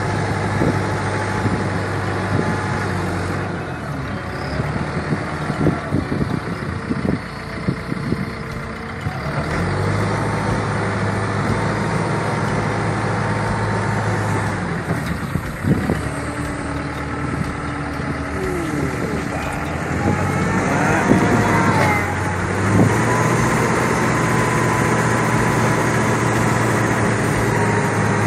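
Diesel engine of a wheel loader running under hydraulic load as its silage block cutter shears and lifts a block from a silage clamp. The engine note eases off for a few seconds twice and picks up again, with a few knocks and a brief whine of hydraulics, and is louder in the last third.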